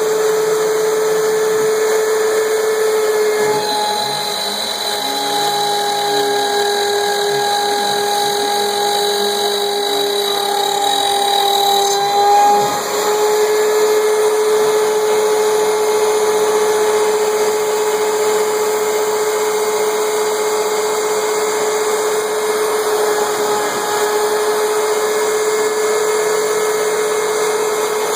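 CNC router spindle with a 1/4" flat-end bit running with a steady high whine, cutting the workpiece at a slow feed, with a vacuum running alongside. From about 4 to 12 seconds in the whine sags slightly and a second, higher whine joins, with a brief swell near the end of that stretch.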